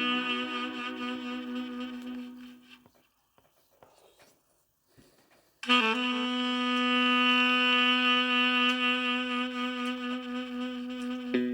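Tenor saxophone holding a long note that fades away over the first three seconds. After a couple of seconds of near silence, a new long note starts sharply and is held steady for about six seconds, and the melody moves on again near the end.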